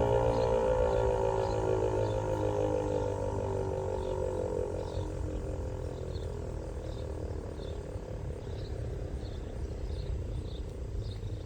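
ASC Tempest-128 AC/DC tornado siren with an 8-port chopper, winding down after its alert signal: its tone slides steadily lower and fades. A faint high chirp repeats a little under twice a second.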